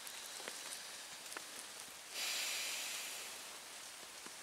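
Light rain and dripping around a small campfire of twigs, paper and pine needles, with a few sharp crackles from the burning twigs. About two seconds in, a louder rustling hiss starts suddenly and fades away over a second or so.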